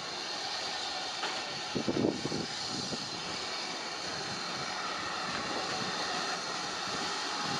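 Steady hiss of steam from a steam locomotive at the platform, with a brief muffled bump about two seconds in.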